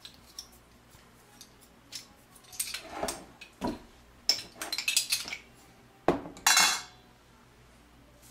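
Kitchen handling sounds of a glass sugar jar and a plastic measuring spoon by a stainless-steel bowl: scattered clicks, then a run of sharp clinks and knocks in the middle, and a short gritty scrape about six and a half seconds in as the spoon digs into the granulated sugar.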